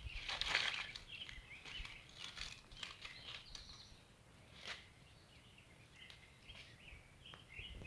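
Leaves rustling and stems snapping as quelite jabonera tips are picked by hand, loudest in the first second, with one sharp snap about five seconds in. Small birds chirp faintly in the background.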